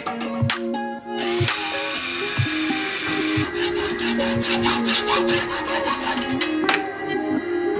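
Electric drill boring a drainage hole through a metal exhaust end cap for about two seconds, starting about a second in, over background music with a steady beat.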